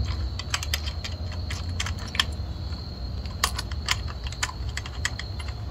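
Small irregular metallic clicks and jingles as the handlebar clamp bolt and tension lever on an e-bike stem are worked by hand, threaded finger-tight, with the bike's keys on their ring jangling against the stem. A steady low hum runs underneath.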